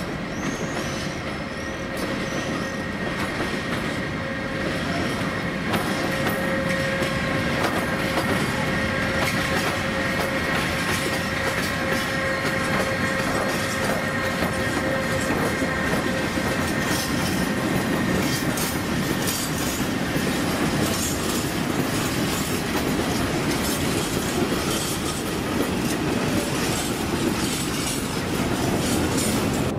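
Freight train passing, hauled by a 111Ed (Newag Dragon) electric locomotive with a string of open wagons: a steady rumble of wheels on rail with a steady high squeal through the first half, then the rhythmic clatter of wagon wheels over rail joints.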